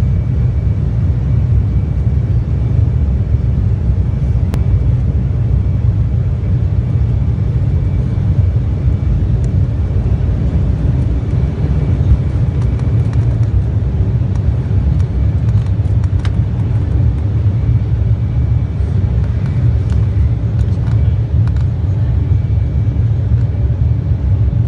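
Airliner cabin noise: a steady low rumble of the engines and rushing air, heard from inside the plane.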